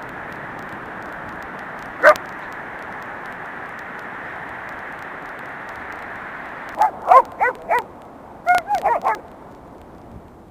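Dogs barking: one short bark about two seconds in, then two quick runs of yapping barks near the end, heard over a steady rush of wind and surf.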